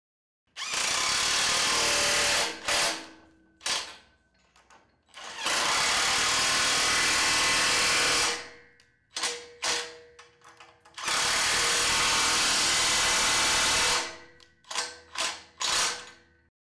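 DeWalt cordless impact wrench tightening the nuts on a grooved-pipe fitting's bolts. It runs in three long pulls of two to three seconds each, and each pull ends in a few short trigger bursts as the nut seats.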